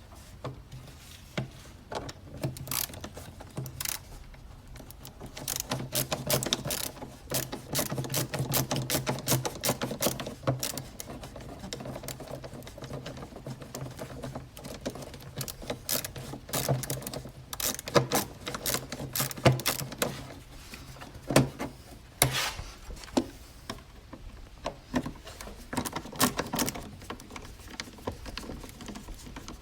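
A hand screwdriver backing out the Phillips screws of a plastic air filter housing cover, giving many rapid ratchet-like clicks in uneven runs. A low hum sits under the middle stretch.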